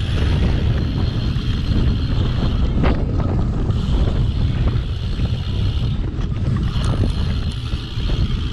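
Heavy wind buffeting on a GoPro action camera's microphone as a cyclocross bike is ridden at race speed. A few sharp knocks come through about three, six and seven seconds in.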